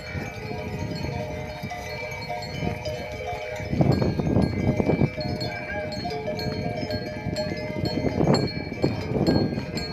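Many cattle neck bells ringing and clanking unevenly as a herd of cows moves along, the tones overlapping. A few louder animal calls break in about four seconds in and again near the end.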